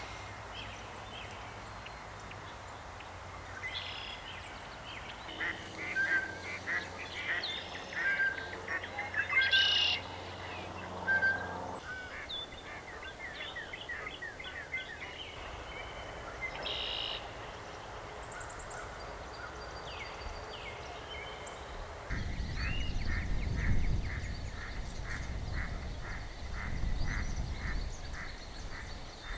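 Waterfowl calling, honking and quacking, with scattered calls in the first half and a quick, evenly spaced run of calls over the last several seconds.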